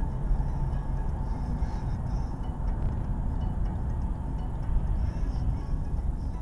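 Steady in-cabin road and engine rumble of a car driving at highway speed, about 95 km/h, picked up by a dashcam microphone.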